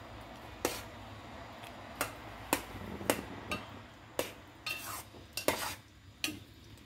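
Slotted steel spatula clinking and scraping against a stainless steel pot while stirring fried bread pieces in simmering sugar syrup, about a dozen irregular clinks.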